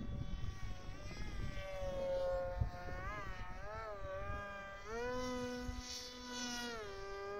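Electric motor of a radio-controlled F-22 model plane whining steadily, its pitch sliding up and down several times as the throttle is worked.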